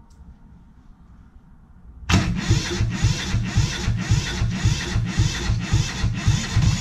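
Two-cylinder Perkins diesel engine catching suddenly about two seconds in, then running loudly with a steady pulsing beat.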